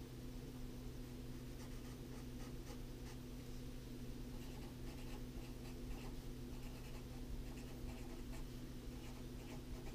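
Felt-tip marker scratching on paper in many short strokes, colouring in a drawing and writing words. Faint, over a steady low hum.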